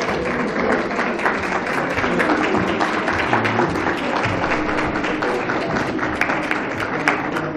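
Audience applauding, a dense, steady run of many hands clapping.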